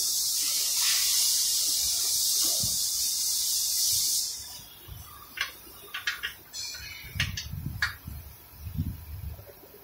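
A loud steady pressurised hiss that cuts off suddenly about four seconds in, followed by scattered light clicks and knocks and a few low thumps.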